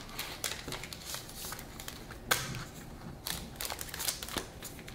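Trading cards and foil booster-pack wrappers being handled: cards slid and flicked through in the hand, with scattered light clicks and crinkles and one sharper click about two seconds in.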